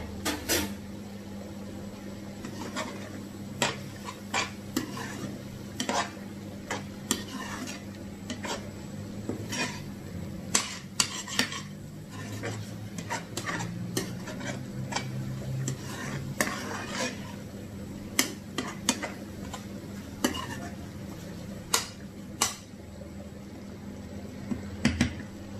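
A spatula stirring and scraping mushrooms in a frying pan, with irregular clinks against the pan's metal and a faint sizzle of frying in ghee. A steady low hum runs underneath.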